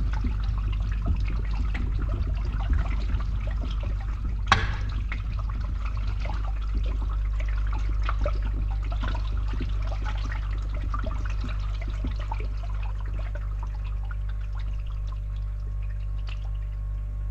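Water draining and trickling through a pipe over the steady low hum of a running pump. One sharp knock about four and a half seconds in; the trickling thins out near the end, leaving mostly the pump hum.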